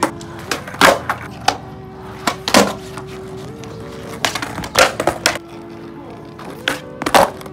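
Skateboards on concrete: sharp clacks of the decks popping and landing every second or two, with wheels rolling in between, over background music.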